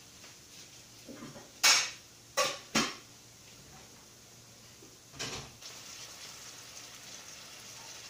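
Three sharp metal clanks of cookware on the stove and another clatter about five seconds in, followed by a steady sizzle as beef steaks begin frying in a stainless steel frying pan.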